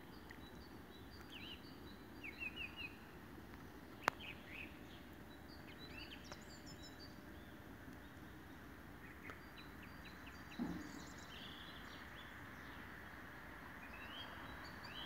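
Small songbirds chirping and singing short phrases on and off, faint over a steady low background hiss, with one sharp click about four seconds in.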